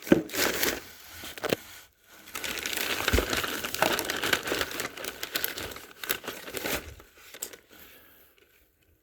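Packaging crinkling and rustling as items are handled and unwrapped from a shipping box, with a short break about two seconds in, dying away near the end.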